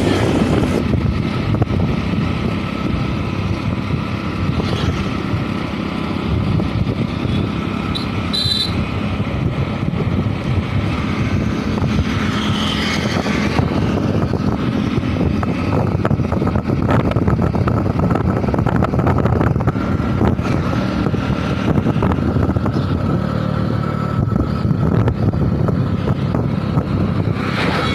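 Steady rumble of a motor vehicle on the move, engine and road noise without a break, with a brief high tone about eight seconds in.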